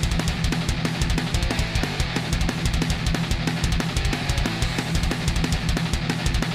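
Background music: fast rock with drums and electric guitar, a dense steady beat throughout.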